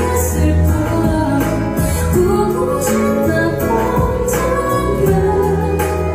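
A woman singing a slow, emotional Korean pop ballad live into a handheld microphone, with long held notes over an instrumental accompaniment with a steady bass line.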